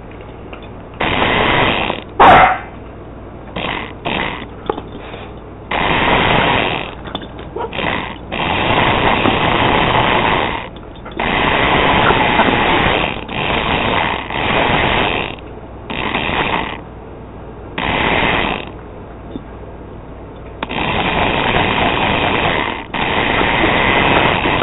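Remote-control monster truck's electric motor and gears whirring in repeated bursts of one to three seconds as it drives and stops, with a sharp knock about two seconds in.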